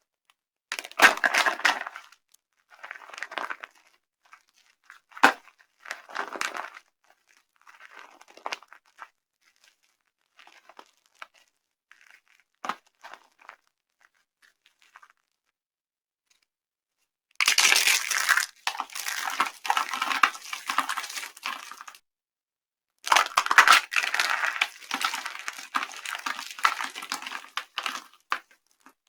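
Dry soap crushed and crumbled by hand, crunching and crackling. Several short crunches and a sharp crack come first, then after a pause two long runs of dense crunching.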